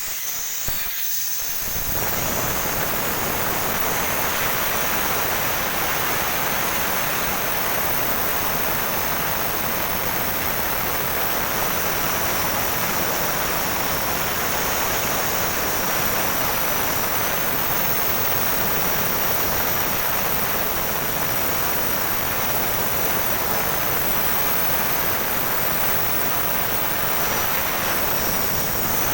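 Compressed gas rushing out of an open cylinder valve in a steady hiss that starts about a second and a half in, venting what is left in the cylinder so the valve can be worked on.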